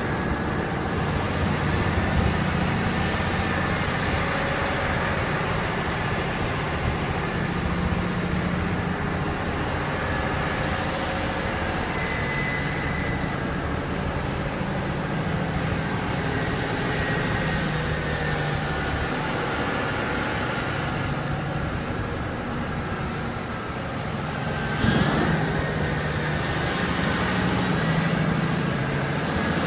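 Steady engine and road noise from a giant Caterpillar mining haul truck driving on a paved highway, heard from a vehicle following close behind. About 25 seconds in there is one brief sharp sound with a short rising tone.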